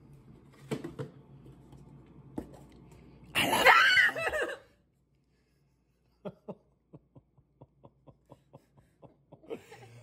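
A few light knocks, then a woman's sudden startled scream lasting about a second, three and a half seconds in, followed by rapid short breathy bursts of laughter.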